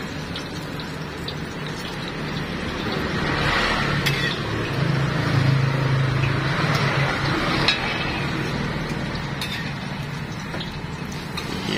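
Martabak telur frying in oil on a large flat iron griddle, sizzling, with metal spatulas scraping and tapping on the pan as the martabak is folded and turned. A low hum swells through the middle.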